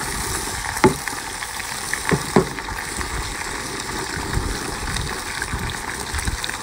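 Seafood in a steaming wok of sauce sizzling with a steady hiss, with a few short sharp knocks, the loudest about a second in.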